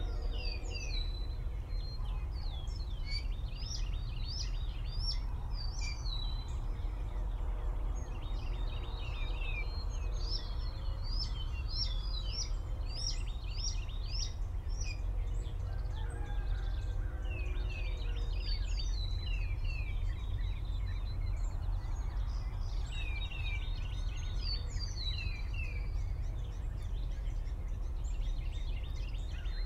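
Songbirds singing in the surrounding trees: repeated phrases of quick, high, downward-sweeping chirps, a new phrase every couple of seconds, over a steady low rumble.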